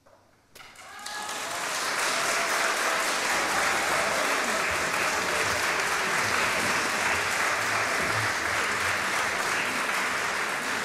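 Concert-hall audience breaking into applause about half a second in, just after the orchestra's last note has died away. The clapping builds for about a second and then holds steady.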